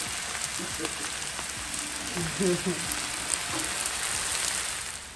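Fried rice with shrimp and pineapple sizzling steadily in a frying pan on the stove, with a few faint clicks; the sizzle drops off near the end.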